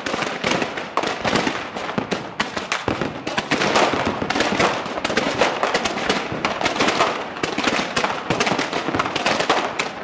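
Fireworks going off at close range: a dense, unbroken run of sharp pops and crackling, many reports a second.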